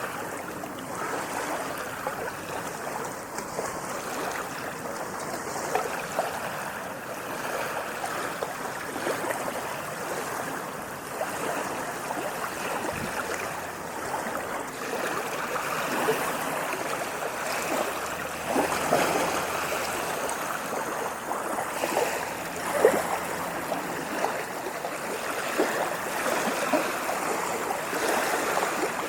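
Water lapping and splashing without a break, a dense patter of small splashes with a few louder ones around two-thirds of the way through.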